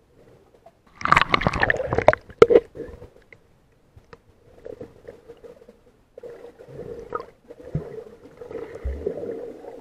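Muffled water sounds picked up by a camera underwater: a loud burst of splashing and bubbling about a second in, lasting a second and a half, then softer gurgling water noise as swimmers move below the surface.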